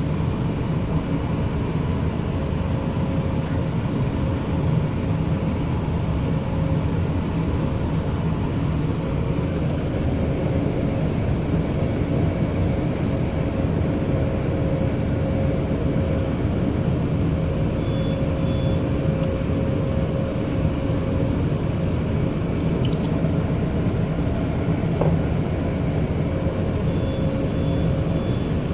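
Cargo ship's engine and machinery running with a steady low hum and rumble, a faint steady tone sitting above it.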